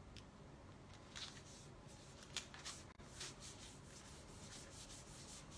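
Fingers rubbing a paper sticker label down onto a cardstock card: faint paper rustling and rubbing with small scratchy ticks, the sharpest about two and a half seconds in.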